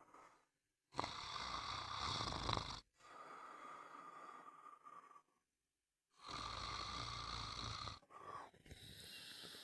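A person snoring: two loud snores about five seconds apart, each lasting nearly two seconds, with softer breathing between them.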